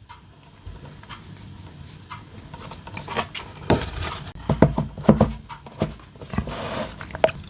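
Handling noise of small objects being picked up and moved about on a table: irregular soft taps, rubs and light clicks, busier after the first second or so.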